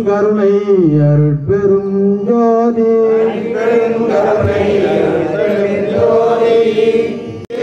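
Devotional chanting on long held notes that slide between pitches, with a brief break near the end.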